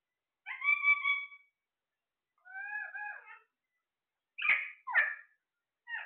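Alexandrine parakeets calling: a held, even-pitched call about half a second in, a wavering call around three seconds, then two quick calls that slide down in pitch and a short call near the end.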